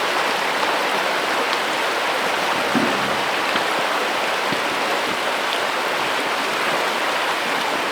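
River water rushing steadily over stones, an even hiss with no engine in it.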